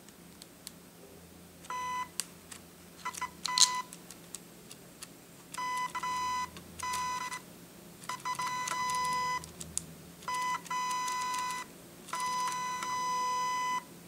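Shanny SN600N speedlite's zoom head motor whining at a steady high pitch as the head zooms in and out. There are about eight runs of varying length, from a fraction of a second to over a second, with light clicks between them. The whine is high-pitched compared with the lower zoom sound of Nikon flashes.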